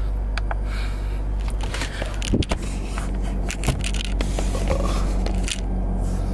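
Scraping, rubbing and clicking of a phone being handled and repositioned against a car dashboard, close to its microphone, over a steady low hum in the car cabin.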